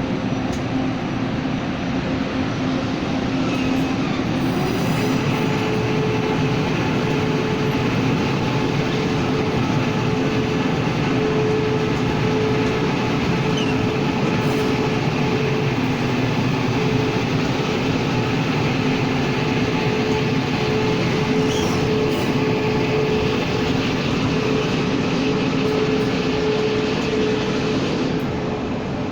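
Passenger train hauled by a Taiwan Railways electric locomotive, running as it pulls out of the station: a steady rolling noise with a humming tone that shifts higher about five seconds in, easing slightly near the end.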